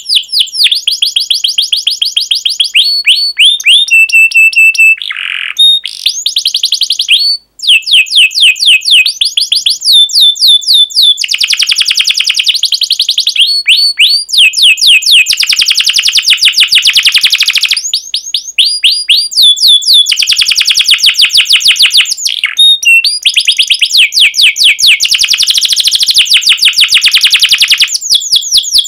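Domestic canary singing a long, continuous song of rapid repeated chirps and rolling trills, with a short steady held note about four seconds in and a brief break about seven and a half seconds in.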